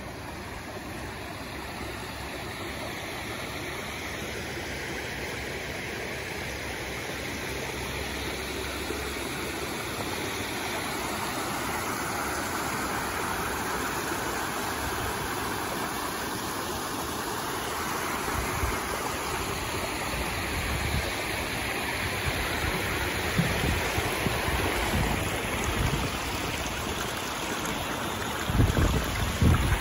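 Overflow water from a lake at very high level rushing over a low dam spillway and down a small outflow stream: a steady rushing noise that grows louder. Low bumps on the microphone from about two-thirds of the way in.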